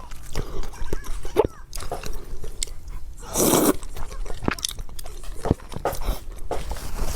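A person eating close to the microphone: repeated biting and chewing with short crunchy clicks, and one louder, noisier burst about halfway through.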